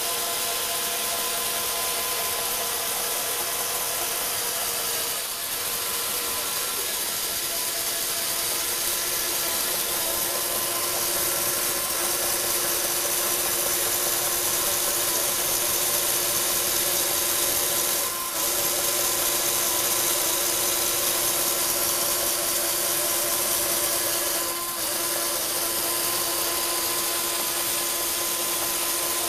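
Lego Technic electric motors and plastic gears whirring steadily as they drive the model cars' moving rigs. The whine dips briefly three times, about five, eighteen and twenty-five seconds in.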